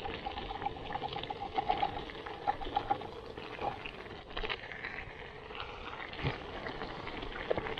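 Chilli simmering in a pot on a Trangia alcohol stove, bubbling and crackling with many small pops. A tin of kidney beans is tipped in at the start, and a spatula stirs the pot near the end.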